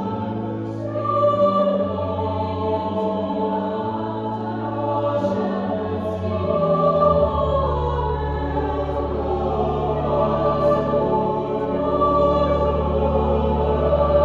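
Mixed choir singing with pipe organ accompaniment, the organ holding long low bass notes that step down to a lower held note about halfway through.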